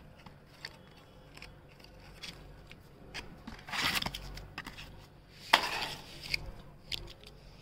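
A blister pack of Drontal Plus dog dewormer tablets and its cardboard box being handled, giving scattered small clicks and crackles. Two louder rustling bursts come about four and five and a half seconds in.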